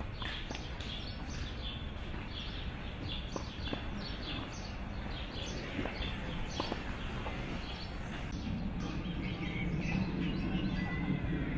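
Small birds chirping, many quick repeated chirps over steady outdoor background noise. A low hum grows louder in the last few seconds.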